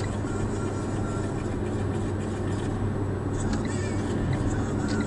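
Steady engine and tyre noise inside a moving car's cabin, recorded by a dashcam while cruising.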